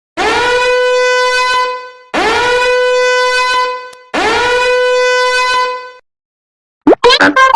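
A horn sound effect, like a shofar, blown three times. Each blast is identical, lasts nearly two seconds, and swoops up quickly into a steady note. Near the end, after a short gap, a rapid jumble of loud cartoon-style sound effects begins.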